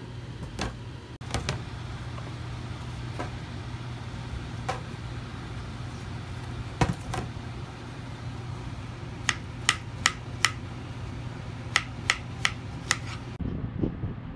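Knife slicing strawberries on a plastic cutting board: two runs of four sharp taps, each run a little over two taps a second, over a steady low hum.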